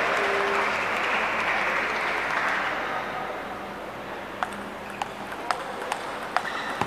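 Spectators' applause dying away over the first few seconds, then a table tennis rally: the ball clicking sharply off bats and table, about two clicks a second.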